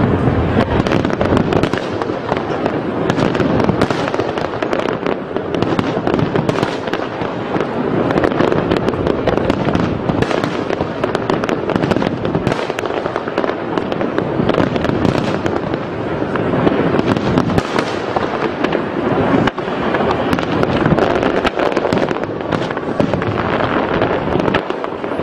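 Aerial fireworks shells bursting in a rapid, unbroken barrage: many overlapping bangs and cracks with no pause between them.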